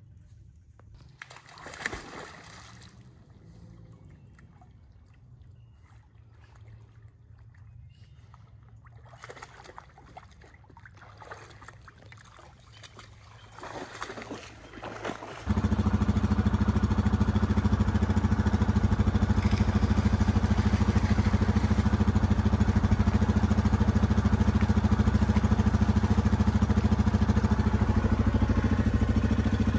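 A hound wading and splashing through shallow water. About halfway through, the Yamaha Grizzly 700 ATV's single-cylinder engine comes in suddenly and runs loud and steady to the end.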